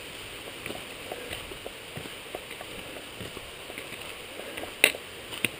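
Footsteps and trekking-pole tips clicking on a rocky trail, with one sharp click about five seconds in and a lighter one just after, over a steady hiss.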